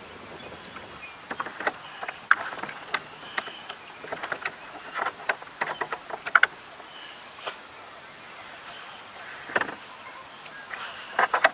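Small wind-driven wavelets lapping and slapping against a plastic kayak hull: irregular little splashes and clicks over a steady background hiss.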